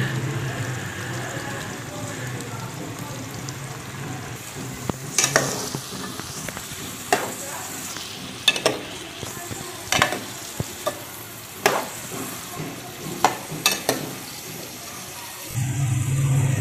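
Julienned carrots frying in oil in a metal pot, a steady sizzle. A spoon stirs them and clicks against the pot about ten times in the middle. A low hum comes in near the end.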